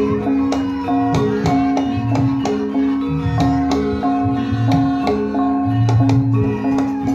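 Traditional Javanese dance music: steady hand-drum strokes over held melodic notes and a low bass line.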